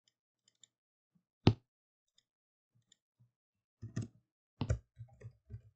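Computer clicks: one sharp click about one and a half seconds in, then a run of keyboard keystrokes from about four seconds in as a short name is typed.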